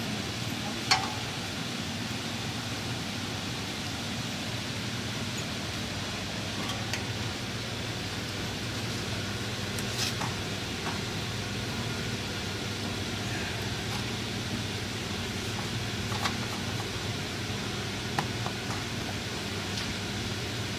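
A few sharp metal clinks as a brake rotor is handled on the wheel studs of a car's front hub, the loudest about a second in, over a steady low hum.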